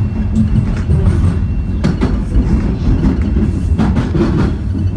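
Toronto Rocket subway train on TTC Line 1 running at speed, heard from inside the car: a loud, steady low rumble with a faint high whine. There are a few sharp clacks from the wheels over the track, about two seconds in and again near four seconds.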